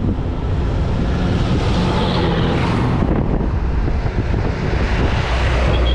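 Wind rushing over the microphone of a moving scooter, with road and vehicle noise underneath.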